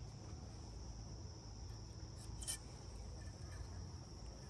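Faint small clicks and scrapes of metal tweezers working gunk out of a chainsaw bar's oil groove, with a sharper click about halfway. Under them runs a steady high insect trill, like crickets.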